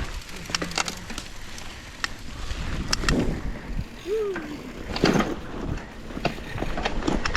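Mountain bike rolling down a dirt trail: tyres rushing over dirt and rocks, with the chain and frame rattling in sharp clicks and knocks, and a brief squeak about four seconds in.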